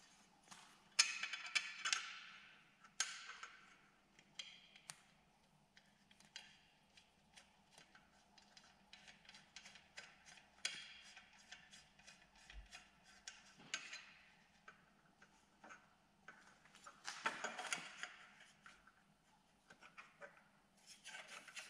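Faint, scattered clicks, taps and knocks of aluminium brackets being handled and held against a motorcycle frame, with a few short rustling bursts near the start and about three quarters through.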